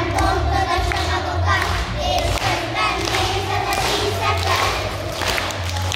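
Children's choir singing, with held notes, over a low rumble.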